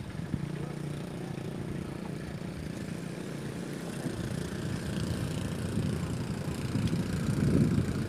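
Small boat engine running steadily, growing louder near the end.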